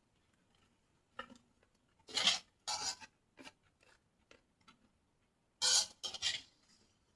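Eating noises close to the microphone: five short rasping, scraping bursts, with a few faint clicks between.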